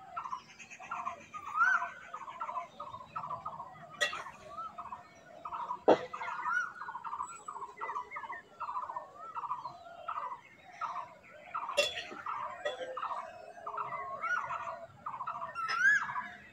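Birds chirping in quick repeated calls, about four a second, with a few rising calls near the end. A metal spatula clacks sharply against the kadai three times as onions are stirred in hot oil.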